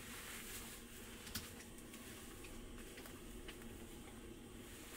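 Quiet room tone with a faint steady hum and a few faint light clicks, the clearest about a second and a half in.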